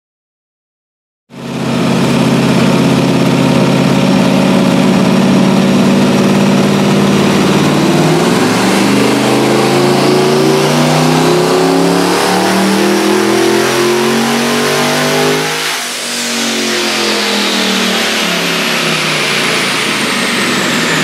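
Twin-turbo LS V8 in a Toyota Hilux running on a chassis dyno: it holds steady revs, then the pitch climbs over several seconds through a dyno pull, dips briefly, and winds back down, with a high whine sliding downward near the end.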